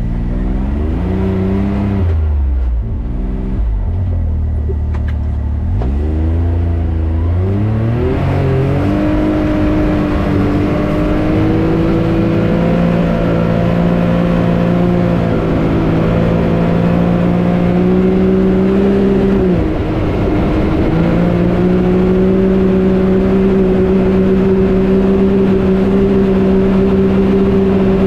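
Can-Am Maverick X3 Turbo RR's turbocharged three-cylinder engine revving up and down several times, then pulling at a fairly steady pitch, with one brief drop and recovery about two-thirds of the way through as the side-by-side is driven.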